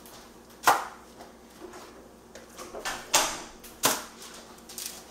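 Raw chicken thighs set down on a foil-lined baking pan: four short slaps and crinkles of the aluminium foil, one about a second in and three close together in the last two seconds.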